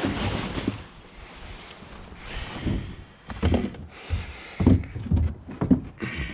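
Irregular knocks and thumps with some rustling as leaves and loose debris are scooped out of a boat, the knocks coming in a cluster through the second half.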